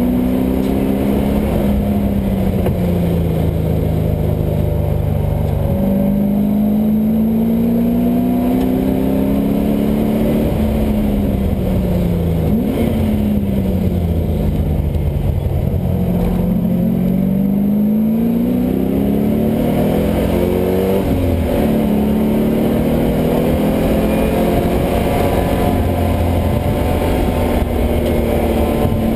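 LS1 V8 engine in a Mazda Miata running hard on track. Its note rises and falls again and again as the throttle and gears change, with a sudden jump in pitch about six seconds in.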